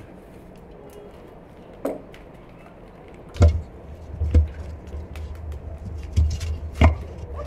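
Split firewood logs being set down and shoved into place on the stone floor of a brick wood-fired oven, heard from inside the oven's dome: several separate knocks of wood on stone, the strongest about three and a half, four and a half and seven seconds in.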